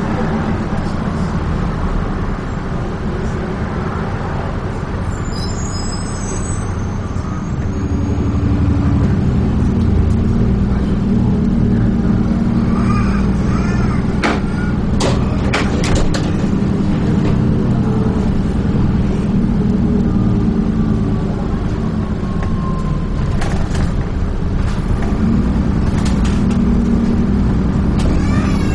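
Dennis Trident 2 double-decker bus heard from on board while driving: a steady low engine drone with road noise that grows louder about eight seconds in, and a few sharp rattles partway through and near the end.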